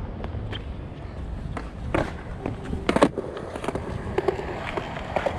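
Skateboard wheels rolling on a concrete skatepark surface, a steady low rumble broken by sharp clacks and knocks of the board. The loudest clack comes about three seconds in.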